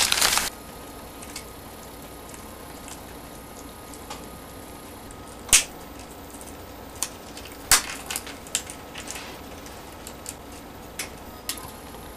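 African grey parrot chewing and tearing at a white shredded scrap with its beak: scattered sharp crunches and clicks, the two loudest about five and a half and seven and a half seconds in, over a faint steady hiss. A louder sound cuts off half a second in.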